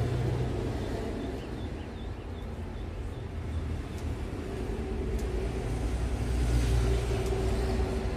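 Steady low rumble of background noise, with a few faint sharp clicks of grooming scissors snipping a poodle's curly coat.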